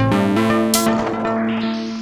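Sequenced synthesizer techno from hardware synths, pitched synth notes in a repeating pattern. The deep bass drops out at the start, and from about a second in the sound grows steadily duller as the high end closes off, leaving a few sustained notes.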